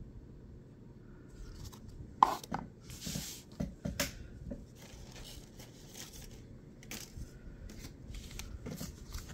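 Pokémon trading cards being handled: rustling and light taps, busiest in the first half, with one sharp click about two seconds in.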